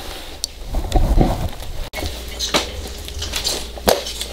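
Short clicks, knocks and rustles of gear being handled: a full-face helmet being pulled on, then a mountain bike being mounted after a cut about two seconds in.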